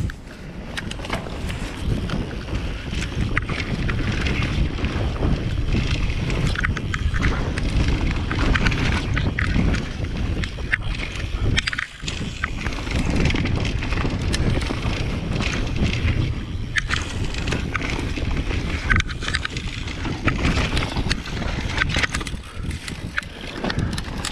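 Wind buffeting a handlebar-mounted GoPro's microphone as a mountain bike is ridden fast down a dirt trail, its Maxxis DHF tyres rolling over the dirt and the bike clattering over bumps, with many sharp knocks. The noise dips briefly about halfway.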